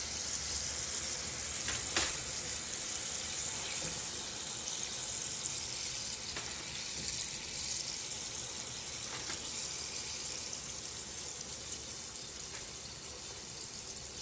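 Battered shrimp frying in a shallow pan of hot oil, a steady sizzle that eases off slightly toward the end, with a few sharp clicks, the clearest about two seconds in.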